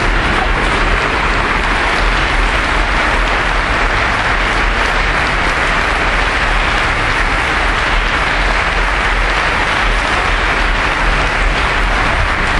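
Theatre audience applauding, a dense and steady clapping that holds without a break.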